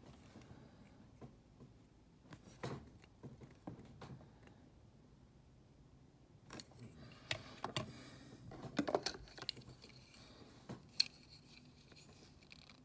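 Faint clicks, taps and light scrapes of a 1:64 Hot Wheels diecast pickup truck being handled in the fingers and set down on a tabletop, with a busier run of clicks about seven to nine and a half seconds in and a single sharp tap near eleven seconds.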